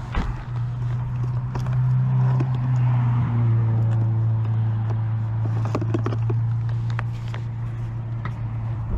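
A running engine's steady low hum, dropping slightly in pitch about three seconds in, with scattered light knocks and footsteps.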